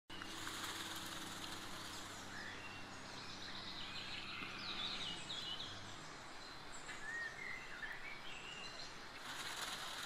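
Small songbirds chirping and calling in short, scattered phrases over steady outdoor background noise. A low steady hum runs underneath and stops about six seconds in.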